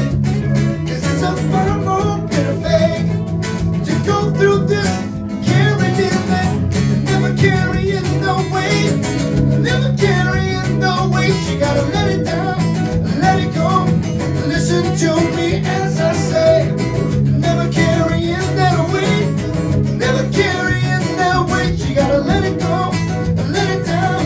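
Live acoustic band playing a pop-country song: acoustic guitar strumming and a Yamaha keyboard, with a man singing lead into the microphone.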